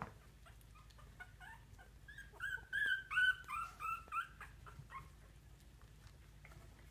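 Two-week-old poodle puppies whimpering and squeaking in short, high-pitched cries. A few faint ones come first, then a quick run of louder cries between about two and four seconds in, and one more near five seconds.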